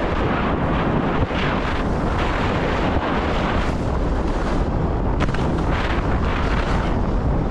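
Wind buffeting the camera microphone at skiing speed, with the steady hiss and scrape of skis running over groomed corduroy snow.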